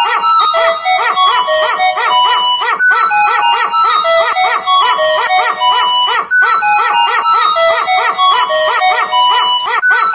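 A phone-ringtone melody played with a dog's short bark, sampled and pitched to each note: quick bark-notes with some held tones. The phrase starts over roughly every three and a half seconds.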